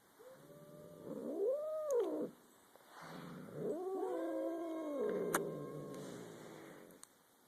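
Domestic cats growling: two long, wavering yowls that rise and fall in pitch, the second one longer. Two short sharp clicks, one near the end of the first yowl and one in the middle of the second.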